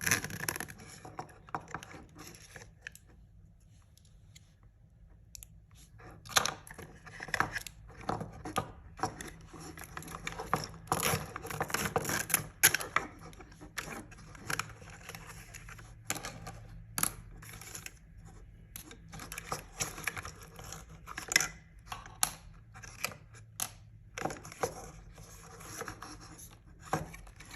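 Plastic toy packaging being torn open and handled by hand: irregular crinkles, rustles, clicks and scrapes, with a quieter pause a few seconds in.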